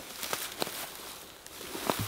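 A few footsteps and rustles in dry grass, with three short crunches, the last and loudest near the end.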